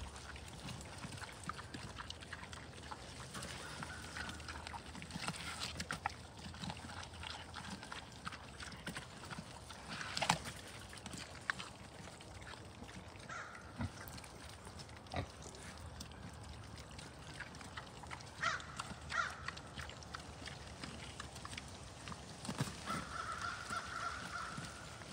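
American Guinea Hog sow and piglets eating pumpkin: steady wet chewing, smacking and crunching, with a few short high squeals from the piglets, the longest near the end. A couple of sharper knocks stand out, the loudest about ten seconds in.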